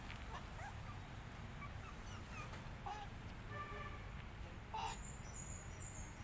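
Young kittens and puppies giving short, high-pitched mewing cries, a handful scattered through, the loudest just under five seconds in, over a low background rumble.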